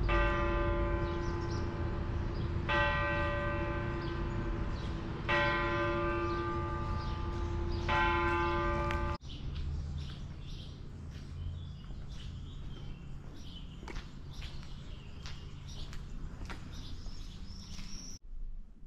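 A church bell tolling slowly, four strikes about two and a half seconds apart, each left to ring. About 9 seconds in the bell cuts off abruptly and a quieter background with short high chirps follows.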